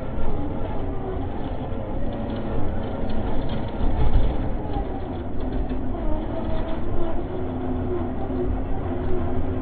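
RC scale tow truck's electric motor and gearbox whining as it crawls along a rough dirt track, the pitch wavering with load, over a steady rumble of tyres, rattles and bumps from the chassis and its load. The loudest knock comes about four seconds in.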